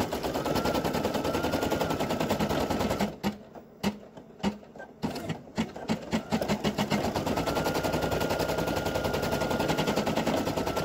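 Brother PE800 embroidery machine sewing an appliqué placement stitch: a fast, even rattle of needle strokes over a steady whine. About three seconds in it breaks off into a few single strokes, then runs fast again from about six seconds in.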